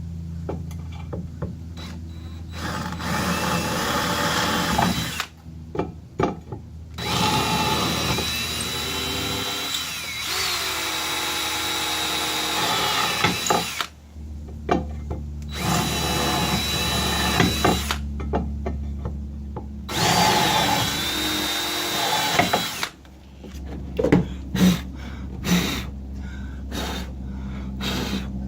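Power drill pre-drilling screw holes for a trolling-motor mounting plate. It runs in about four spells of several seconds each, its whine rising and sagging in pitch as it bites, with short knocks and clicks between the holes.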